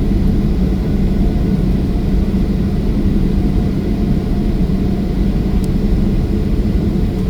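Boeing 737-800 with its CFM56 jet engines running: a steady low rumble with an even hum through it, holding level throughout.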